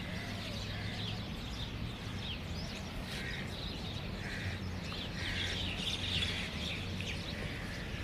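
Several birds chirping and calling in short, repeated notes over a steady low background hum.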